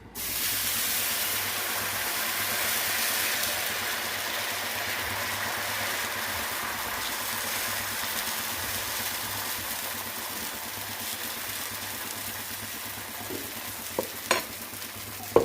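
Dosa batter sizzling on a hot oiled griddle. The hiss starts suddenly as the batter hits the pan and slowly eases off, with a few sharp taps near the end.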